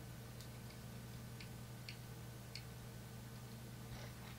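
Faint, irregular light ticks and clicks of a small metal hand tool working on a jaw harp's parts, over a steady low hum, with one louder sharp click at the very end.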